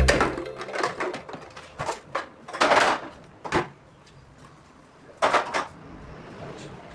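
Knocks, clatter and short scrapes of refrigerator parts being handled as they are taken out. About half a dozen separate knocks come in the first four seconds, then a pair near the middle, and it goes quiet after that.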